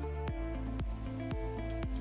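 Background music with a steady beat, about two strokes a second under held notes.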